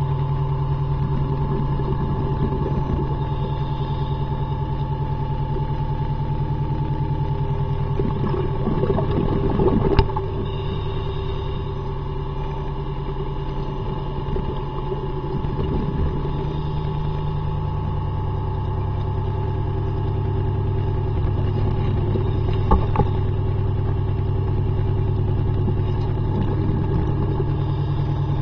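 Boat engine and propeller running steadily, heard underwater near the hull: a steady low drone with a few higher steady tones, its low pitch shifting slightly about two-thirds of the way through. A sharp knock about ten seconds in and another near the end.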